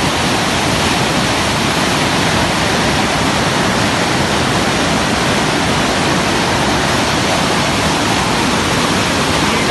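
Fast flash-flood water rushing, a loud, steady, unbroken rush.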